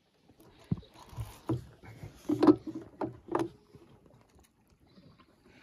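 A run of five or six knocks and clunks on a small boat, the loudest about two and a half seconds in, from a fishing rod and torch being handled against the boat's rail.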